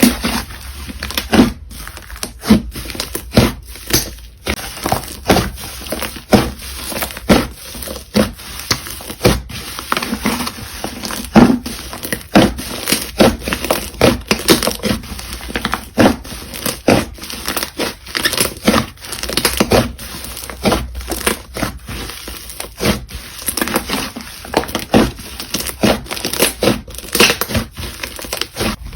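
Slime being squeezed and pressed by hand, giving a dense, irregular run of crackles and pops, several a second.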